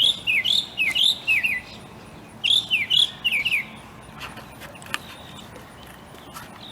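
A small bird chirping: quick runs of short, falling chirps, one burst at the start and a second about two and a half seconds in, then only a few faint ticks.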